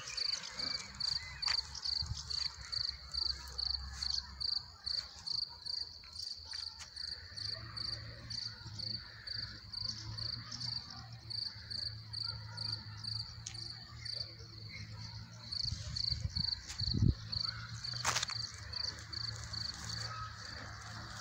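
A cricket chirping steadily, about two and a half short high chirps a second. A low hum sits under it, and there is a single thump about seventeen seconds in.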